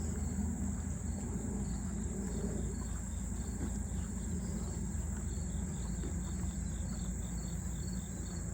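Late-summer insect chorus: a steady high buzz with a quicker rhythmic chirping of a few pulses a second, over a low steady rumble.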